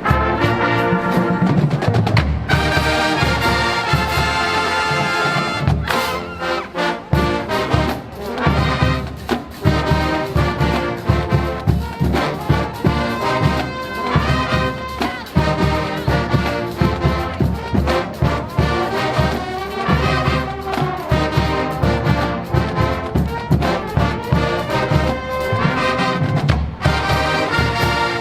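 Marching band playing a loud up-tempo number: trumpets and trombones carrying the tune over a steady, driving drumline beat.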